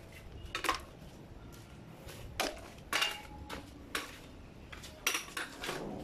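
Metal tools and bike parts clinking and clanking as they are handled, about seven short, sharp knocks spread across the few seconds.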